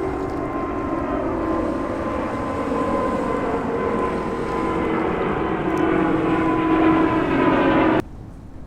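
Jet airliner passing low overhead: its engines make a steady noise with a held whine and grow louder, then the sound stops abruptly near the end.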